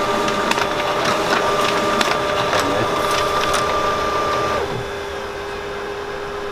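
Office printer running as it prints and ejects a sheet: a steady mechanical hum with a whine and a series of sharp clicks. About four and a half seconds in the higher whine stops and the machine goes on with a quieter hum.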